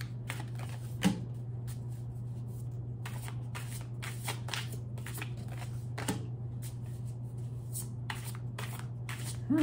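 A deck of tarot cards being shuffled by hand: a run of quick, irregular papery flicks and riffles, over a steady low hum.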